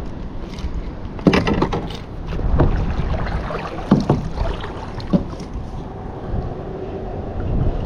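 Handling knocks and clicks on a kayak: a short cluster a little over a second in, then single knocks about every second or so. Under them runs a steady low rumble of wind and moving water.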